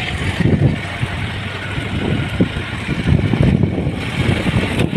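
Wind buffeting a phone microphone held out by a rider on a moving motorcycle, in irregular gusts, over the steady rush of the ride.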